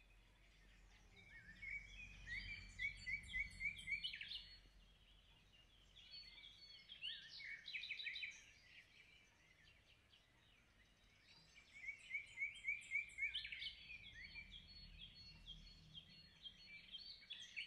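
Birds singing faintly: three phrases of rapid, repeated chirping notes with short pauses between them.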